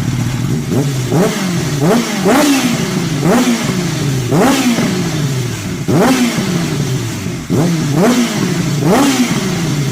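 Kawasaki Ninja H2's supercharged inline-four engine being free-revved in repeated sharp throttle blips, about ten in a row, each rise in pitch falling back to a steady idle.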